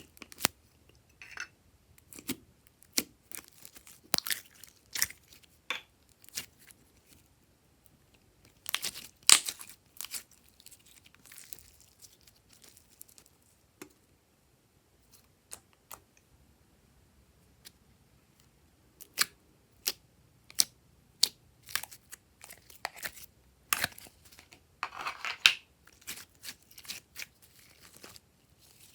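Glossy slime being squished, stretched and folded by hand: irregular sticky pops and clicks, with a couple of longer crackling stretches where it is worked harder.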